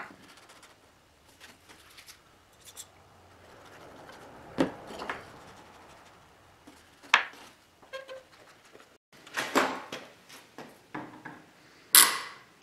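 Pine blocks handled and set against each other on a benchtop, giving a few scattered light wooden knocks. Near the end, the loudest sound is a sharp metallic clatter and scrape of a steel bar clamp being slid and closed onto a block.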